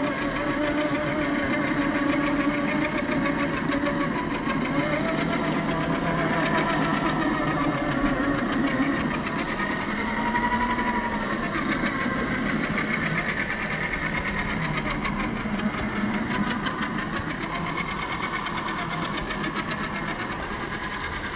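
Whine of a 1/10-scale RC rock crawler's 550 brushed electric motor and geared drivetrain, its pitch rising and falling as the throttle changes.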